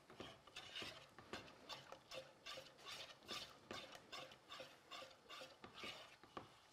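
Wire whisk stirring a thickening semolina-and-milk mixture in a metal pot: faint, even scraping strokes, about two to three a second.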